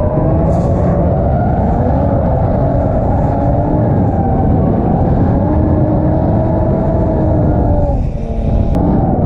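Drift car's turbocharged 1JZ straight-six held at high revs under load through a slide, its pitch wavering up and down. It dips briefly about eight seconds in, followed by a sharp click.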